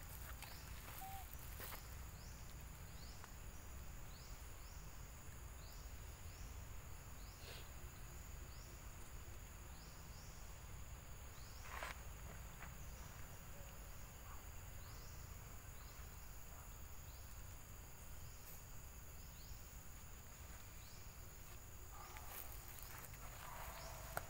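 Forest insects calling: a steady high-pitched whine with short rising chirps repeating a little over once a second. A single sharp click about halfway through.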